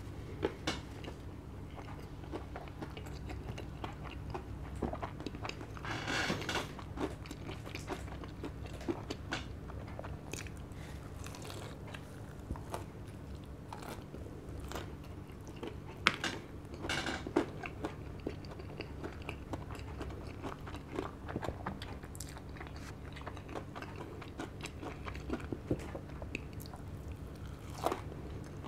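Close-up chewing and biting of crispy KFC Double Down fried chicken, with wet mouth sounds and frequent short crunches of the fried coating; the loudest crunches come about 16 and 17 seconds in and near the end.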